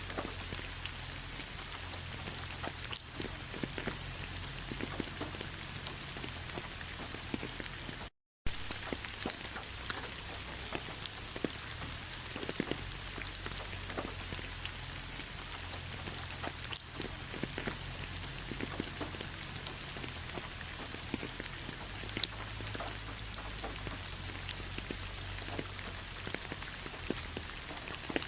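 Rain falling on fallen autumn leaves: a steady patter of many separate drops ticking on the leaves. The sound drops out to silence for a fraction of a second about eight seconds in.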